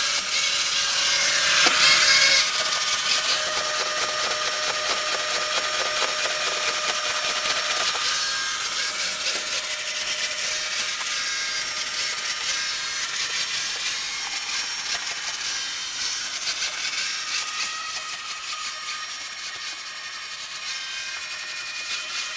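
CCP LAQULITO CZ-860-RB robot vacuum cleaner running, still working normally: a steady motor and brush noise with a thin whine. It is louder briefly about two seconds in, then grows quieter past the middle and rises again near the end.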